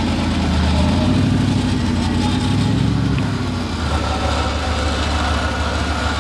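Off-road Jeep's engine running at idle; its pitch lifts briefly about a second in, then settles into a steadier low hum after about three and a half seconds.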